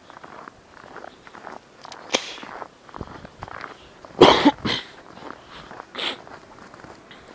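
Footsteps crunching through deep snow, with a loud short burst about four seconds in, followed at once by a smaller one and another near six seconds.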